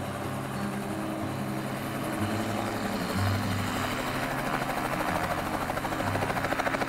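Light helicopter's main rotor spinning up on the ground, its beating growing louder and faster through the second half, over background music with sustained low notes.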